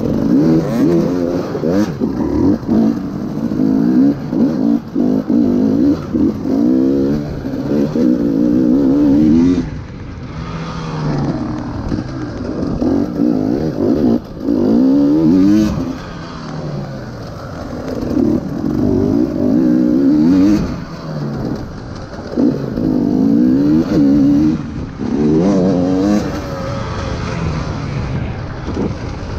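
KTM 300 EXC TPI two-stroke enduro engine with an FMF exhaust, revving up and down over and over as it is ridden hard. The throttle shuts off briefly several times between bursts of acceleration.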